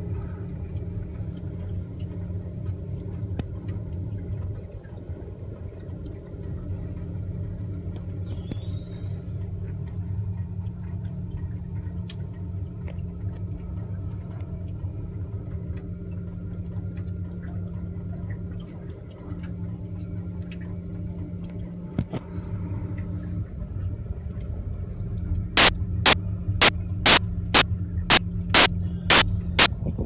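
Steady low machinery hum with faint scattered crackles. About 25 seconds in, a rapid run of sharp, loud clicks starts, about two and a half a second.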